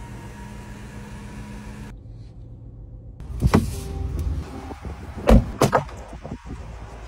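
Land Rover Defender 90's electric sunroof motor whirring steadily, then a door shutting with a loud thud about three and a half seconds in. Near the end come two sharp clunks from the rear door's latch.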